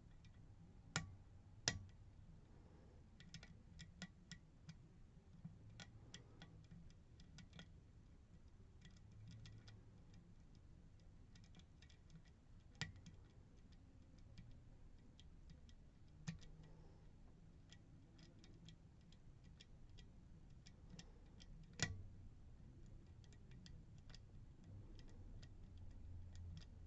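Faint, irregular metallic clicks and ticks of a lock pick working the spring-loaded wafers inside a Miwa DS lock, with a handful of sharper, louder clicks as wafers set or slip.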